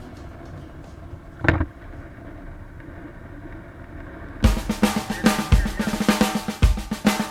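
Rock song on the soundtrack: a quiet stretch with a single drum hit about a second and a half in, then a full drum kit comes in with a steady rock beat about four seconds in.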